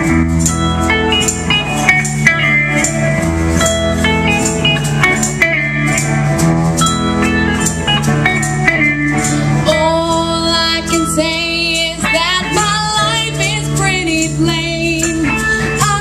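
A live rock band of guitars, drums and tambourine playing over a steady beat. A singer with vibrato comes in about ten seconds in.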